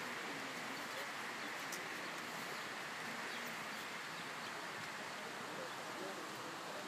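Steady outdoor background hiss with no distinct sounds standing out, even in level throughout.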